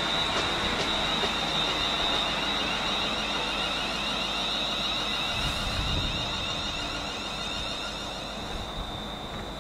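A train running through the station and slowly fading away, with a steady high-pitched whine over the rumble.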